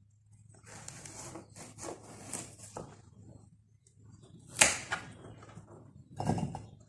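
A kitchen knife scraping and cutting a carrot on a plastic cutting board, with one sharp knock about four and a half seconds in. Near the end the carrot pieces drop into a bowl with a dull thud.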